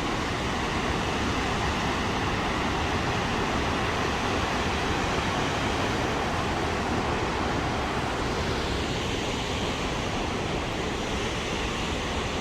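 Steady rushing noise of Burney Falls, a large waterfall, with no breaks or distinct events.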